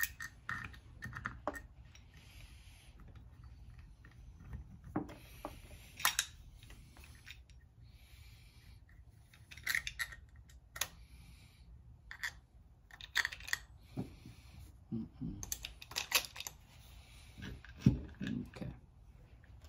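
Irregular metallic clicks and clinks as a motorcycle cam support plate assembly is handled, taken from a bench vise and set down on a workbench, with a few sharper knocks scattered through.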